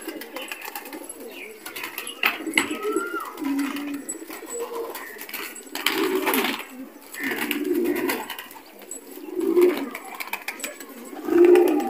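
Flock of domestic pigeons cooing over and over, low repeated phrases a second or two apart, with a brief flutter of wings about six seconds in.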